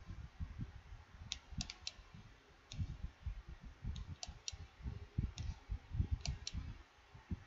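Computer mouse clicking, about a dozen sharp clicks, several in quick pairs like double-clicks, over irregular low dull bumps.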